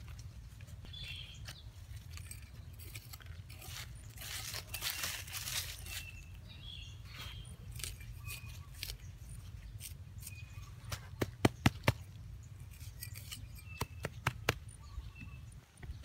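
Leaves rustling and a small blade striking and scraping dry soil, with a quick run of four sharp clicks a little past the middle.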